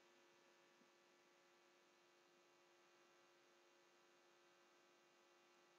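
Near silence: a faint steady electrical hum in the recording.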